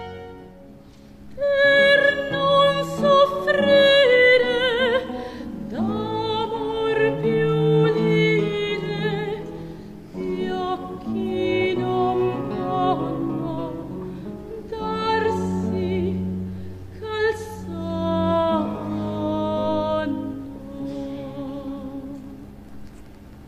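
A woman singing an operatic baroque aria with strong vibrato, accompanied by a small string ensemble. The voice comes in about a second and a half in, after a quiet string passage, and goes on in long held phrases.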